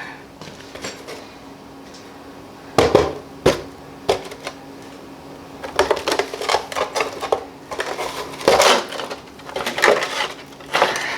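Metal tools and engine parts clanking against each other: two sharp knocks, then several bursts of rattling, scraping clatter.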